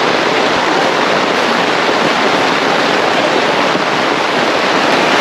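Heavy rain pouring down in a sudden tropical downpour, a loud, steady hiss.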